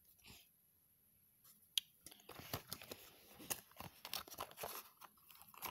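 Paper and cardboard packaging being handled, rustling and crinkling irregularly, starting about two seconds in after a near-quiet start with a single click.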